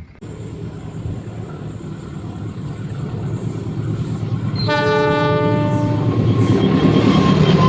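Train approaching with a rumble that grows steadily louder. It sounds one horn blast of about a second and a half, roughly five seconds in.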